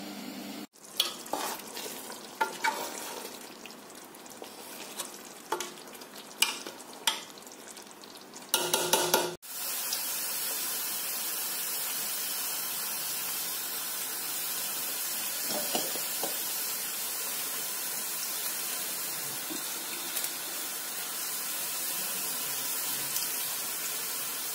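About eight seconds of a spoon clinking and scraping against a metal pan while stirring. After an abrupt cut comes a steady hiss from a pot of water with cumin seeds heating on a gas stove.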